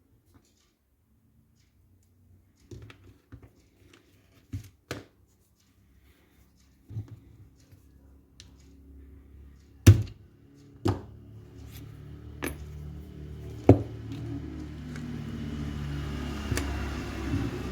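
Scattered sharp clicks and knocks of airsoft M14 rifle and gearbox parts being handled, three of them loud. From about halfway a low rumbling hum swells steadily underneath.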